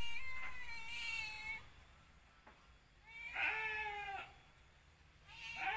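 A cat meowing three times: a long meow at the start, a shorter one in the middle, and another beginning near the end.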